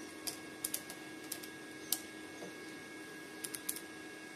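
A clamp meter's rotary selector dial being turned and the meter handled: a run of sharp plastic clicks, several in the first two seconds and a quick cluster of three near the end.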